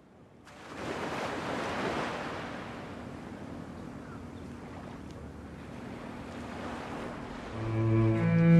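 Surf washing onto a sandy beach, a steady rush of waves with some wind, rising in about half a second in. Near the end a bowed cello begins to play.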